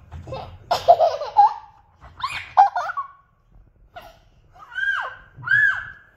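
A toddler laughing in about four high-pitched bursts as she is tickled.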